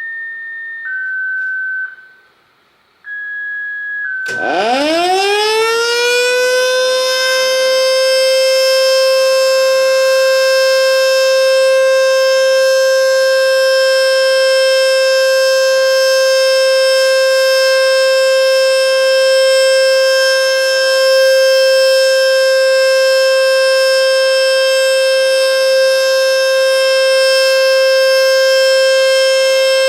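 Federal Signal Model 2 mechanical outdoor warning siren, running on 208 V, winding up from a standstill about four seconds in. It climbs quickly in pitch and settles into a loud, steady single-tone alert signal. Before it starts, a radio scanner plays the county's sequential siren activation tones: a few steady beeps stepping between two pitches.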